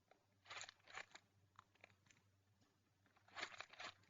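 Faint crinkling and crackling of a squishy toy's plastic packaging being handled, in two short bouts.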